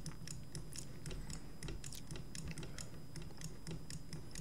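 Light, irregular clicking of a computer mouse and keyboard, several clicks a second, over a faint steady hum.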